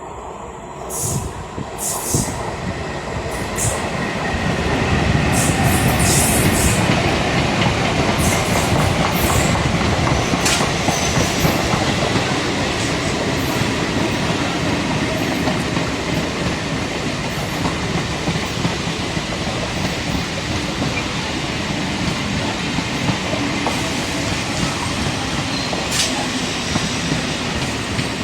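An electric multiple-unit (EMU) local train running close by along the track. The noise builds over the first few seconds and then holds steady, with the wheels clicking over rail joints and a faint, steady high whine.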